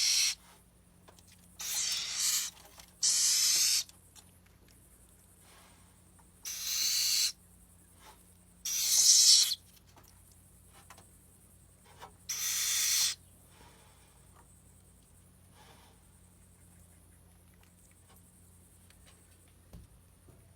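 Little owl giving harsh, hissing screech calls, about six of them, each under a second long, with pauses between.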